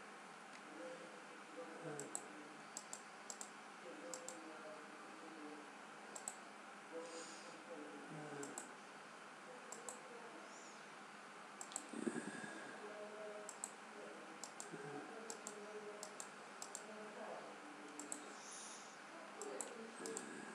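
Sharp, unevenly spaced clicks, roughly one a second, over faint muffled speech.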